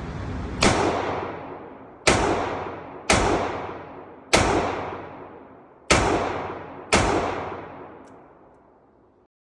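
Snub-nose revolver fired six times at uneven intervals, each shot sharp and followed by a long fading echo.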